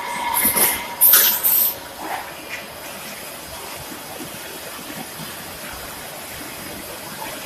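Short, sharp hisses of compressed air from the packing line's pneumatic valves and cylinders, several in the first two seconds with the loudest about a second in, then the steady running noise of the packing machinery.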